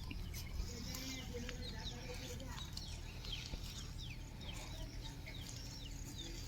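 Many small birds chirping in quick, short falling notes, several a second, over a steady low rumble.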